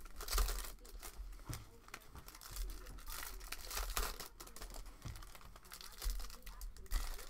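Foil wrapper of a baseball-card pack crinkling and tearing in the hands in irregular bursts as it is pulled open and the cards are slid out.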